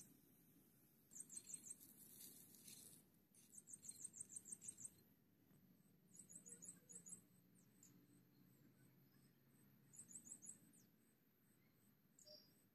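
Faint bursts of rapid, high-pitched chirping, four times, over a steady thin high whine.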